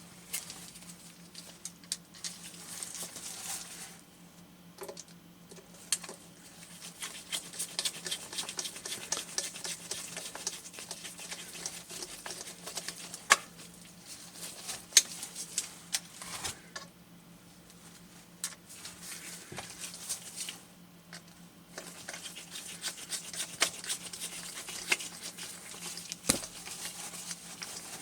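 Small irregular clicks and ticks of a Phillips screwdriver turning small screws into the Icom ID-5100 display unit's plastic case, with the case being handled; a few sharper clicks stand out, with short pauses between bouts.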